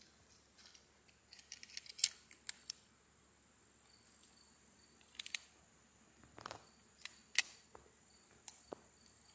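Colt Woodsman Match Target .22 pistol being handled, its action worked by hand: a series of sharp metallic clicks and clacks, a quick cluster of them a couple of seconds in and scattered ones later, the loudest about seven seconds in.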